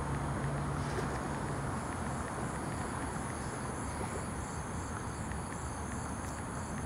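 Insects, crickets by their sound, chirping in a high, regular pulse about three times a second over a steady background hiss, with a low hum in the first second or so.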